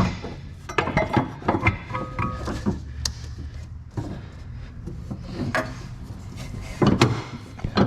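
Irregular knocks, clicks and scraping of hand tools and metal parts being handled while working on a car's rear suspension.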